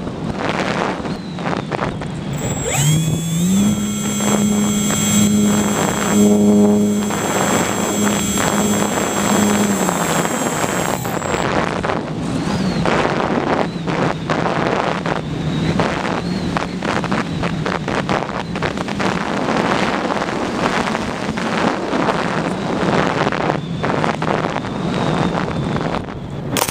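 Wind rushing over the on-board camera of an Easy Glider Pro electric RC glider in flight. A few seconds in, its electric motor spins up to a steady pitched hum, holds for about eight seconds, then throttles back to gliding. At the very end comes a sharp knock as the glider comes down in the grass.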